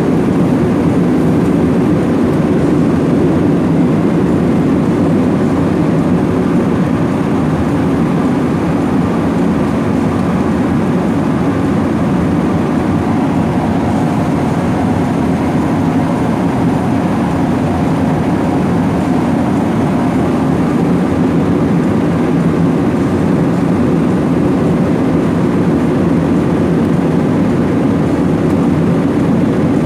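Airliner cabin noise in cruise flight: a steady, low rush of engine and airflow noise.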